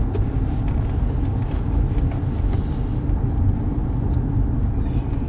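Steady low rumble of a car being driven, its engine and road noise heard from inside the cabin.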